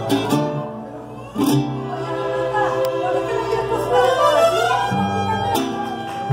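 Mariachi ensemble of violins and guitars playing. A strummed rhythmic passage breaks off just after the start, then a held bass note sounds under a sliding melodic line, and the strummed rhythm comes back about five seconds in.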